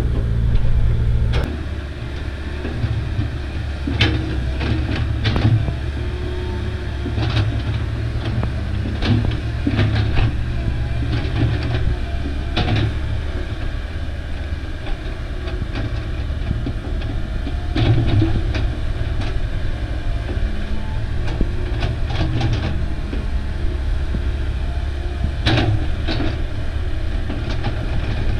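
Komatsu hydraulic crawler excavator working: the diesel engine runs with a steady low rumble under digging load, with irregular sharp clanks as the bucket and boom dig and scrape soil.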